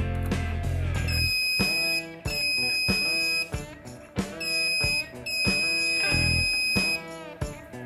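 Background music: plucked guitar notes with a heavy bass line that drops out about a second and a half in.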